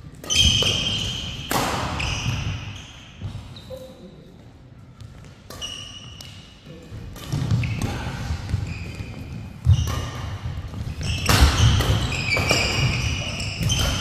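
Doubles badminton rally: racket strings crack against the shuttlecock again and again, with court shoes squeaking and feet thudding on the court mat. The hits come faster and louder in the second half.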